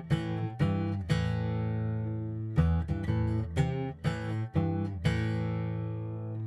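Music: an acoustic guitar strumming chords in a steady rhythm, with one chord left to ring out a second or so in.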